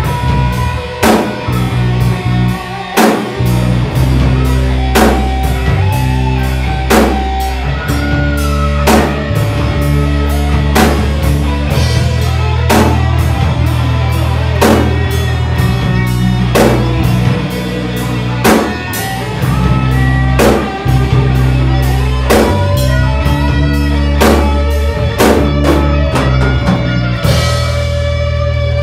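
Rock band playing live: a drum kit keeps a steady beat under electric bass and electric guitar, with a cymbal wash near the end.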